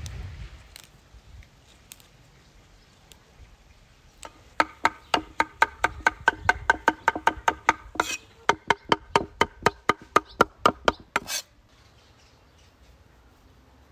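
Meat cleaver chopping leafy herbs on a thick wooden cutting board: a fast, even run of sharp knocks, about four or five a second, with a short break partway through and a louder last knock.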